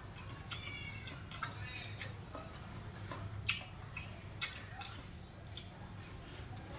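Eating a mandarin orange: scattered wet smacks and clicks of chewing and of fingers pulling segments apart, the sharpest about three and a half, four and a half and five and a half seconds in, over a low steady hum.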